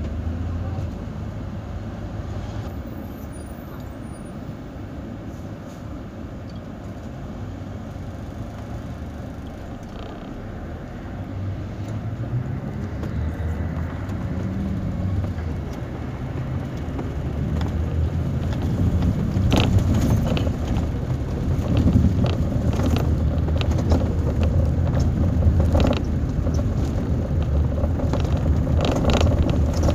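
Intercity coach on the move heard from inside the passenger cabin: a low engine drone with road noise, the engine note rising as the bus speeds up around the middle. In the second half it gets louder, with scattered rattles and clicks.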